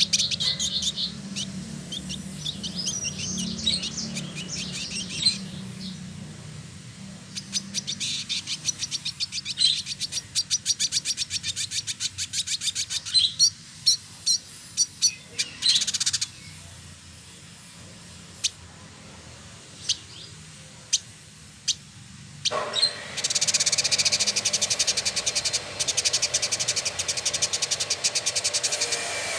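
Male Village Indigobird singing: runs of rapid, high-pitched chattering trills broken by short pauses. Near the end the song becomes a louder, unbroken chatter.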